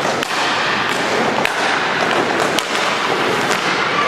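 Roller in-line hockey play: a steady rolling rush of skate wheels on the court floor, broken by a handful of sharp clacks of sticks hitting the puck and each other during a scramble at the goal.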